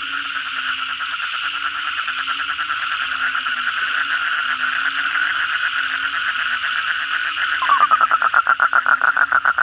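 A chorus of Asian common toads calling after heavy rain: a steady wash of fast, pulsed trills. About three-quarters of the way in, a nearby toad starts its own call, a much louder trill of rapid pulses, throat sac inflated.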